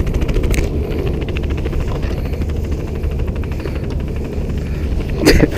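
Wind buffeting the camera microphone: a steady low rumble with a rapid flutter. A short bit of voice comes in near the end.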